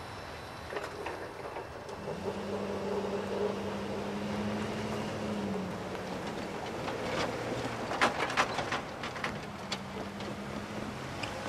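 Pickup truck towing an empty utility trailer across a railroad grade crossing: engine running, then a burst of sharp clanks and rattles a few seconds before the end as the trailer bounces over the rails. A second car follows.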